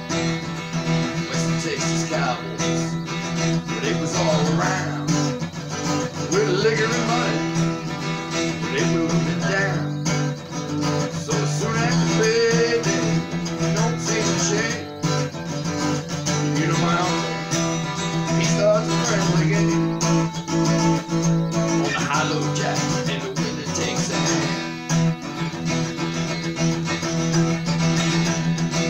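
Acoustic guitar being played solo, a continuous run of picked and strummed chords.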